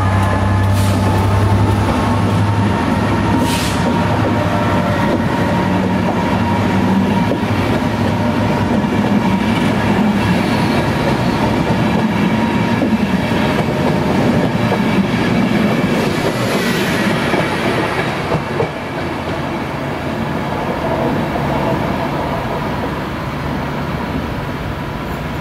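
Passenger coaches rolling past on the rails, wheels clattering over the track. A low steady hum from the locomotive fades in the first few seconds, and the rumble eases off toward the end as the train clears.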